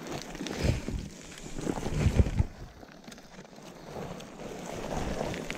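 Loose rock tailings crunching and shifting under a person scooting down a steep slope on her seat, in irregular bumps loudest about two seconds in, with wind buffeting the microphone.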